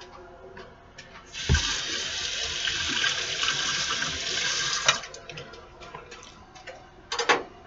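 Kitchen faucet running into a stainless steel sink: the water comes on suddenly with a thump, runs steadily for about three and a half seconds, then shuts off. A few sharp clicks follow near the end.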